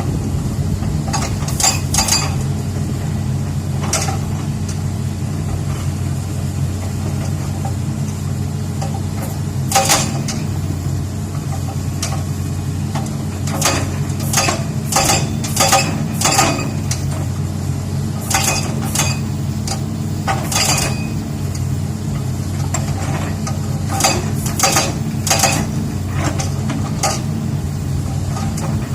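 Excavator's diesel engine running steadily, with sharp metallic clanks and clinks that come in irregular clusters as it works on rock.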